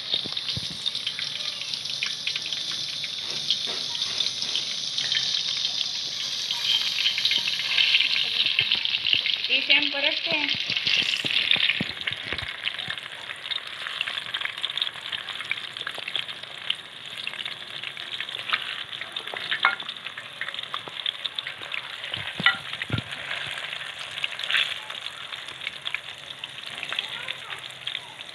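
Chicken keema pakoras deep-frying in hot oil in a steel karahi: a steady crackling sizzle, loudest for the first dozen seconds and then settling lower, stirred with a steel ladle, with a few sharp clicks.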